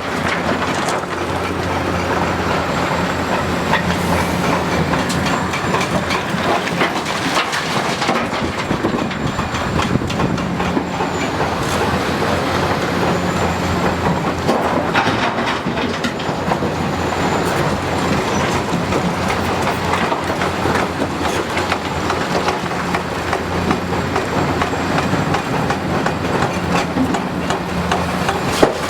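Hitachi 330 excavator working rock: its diesel engine runs steadily, the hum swelling in stretches under load, over continuous rattling and metallic clatter with a few sharp knocks.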